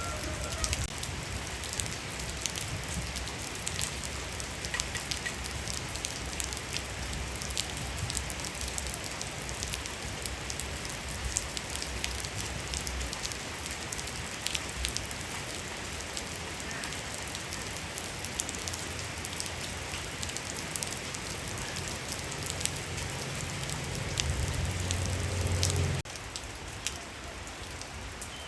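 Steady rain falling, with many sharp individual drops pattering through the hiss. Near the end a louder low rumble comes in for a couple of seconds and cuts off suddenly.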